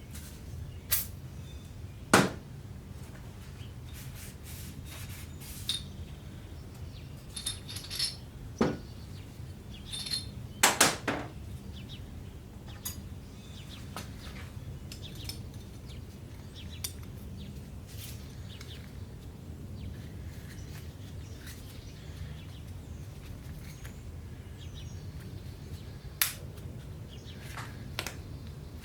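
Scattered metallic clinks and taps of hand tools and engine parts: main cap bolts and caps being set on a 351 Windsor block during crankshaft installation. There are a handful of sharp knocks, the loudest about two seconds in and a cluster around eleven seconds, over a low steady hum.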